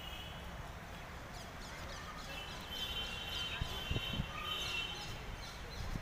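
Birds chirping in many quick, high calls, thickest in the middle, over a steady low outdoor rumble, with a few dull low thumps about four seconds in.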